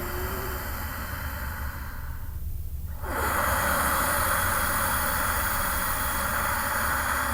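Ujjayi pranayama breathing: slow breaths drawn through a deliberately contracted throat, making a hissing sound in the throat. One breath fades out about two seconds in, and a longer, louder one begins about a second later.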